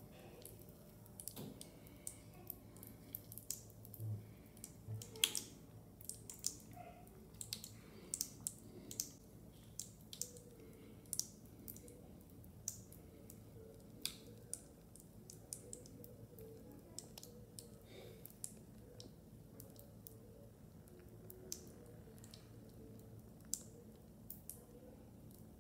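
Lush Dragon's Egg bath bomb fizzing in bathwater: faint, irregular crackling of tiny bubbles popping in the foam. The crackling is busiest in the first half and thins out later.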